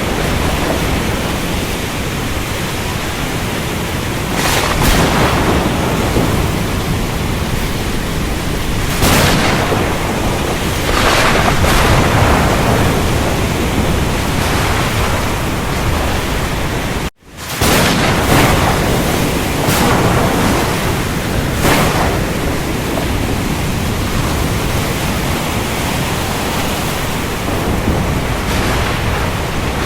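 Thunderstorm recording: steady heavy rain with rumbles of thunder swelling up several times. The sound cuts out abruptly for a split second just over halfway through.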